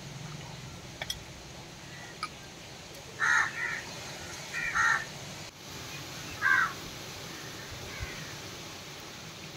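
A crow cawing: a pair of short harsh caws about three seconds in, another pair a second later, then a single caw.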